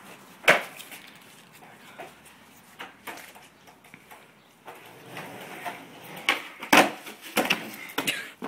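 Skateboard deck popping and slapping on concrete during trick attempts. A sharp knock comes about half a second in, then a cluster of knocks in the last few seconds, the loudest about two-thirds through.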